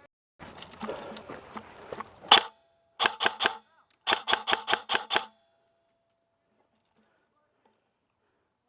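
G&G Predator airsoft electric gun firing: a single shot about two seconds in, then a quick string of four shots and a longer string of about seven, each a sharp crack. Before the shots there is rustling of movement.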